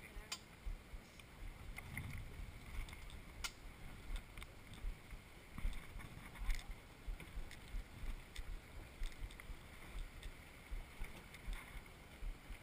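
Kayak on the water: light water movement and small knocks around the hull, with frequent irregular low thumps.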